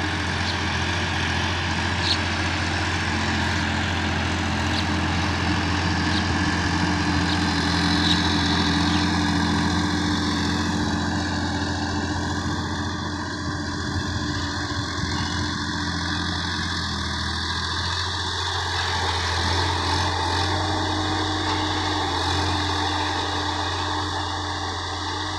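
Sonalika DI-50 RX tractor's diesel engine running steadily under load while it pulls a rotary tiller through dry field soil.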